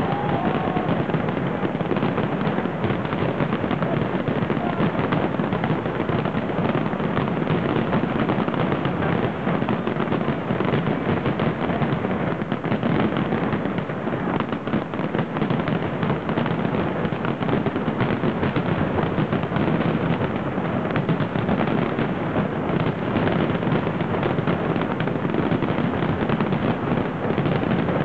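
A large fireworks display at full intensity: many shells bursting and crackling in a dense, unbroken stream of bangs.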